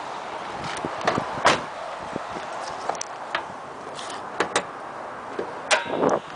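Clicks and clunks of a 1988 Toyota MR2's door and latches being worked, a string of short knocks with the loudest about one and a half seconds in and a longer scuffling noise near the end.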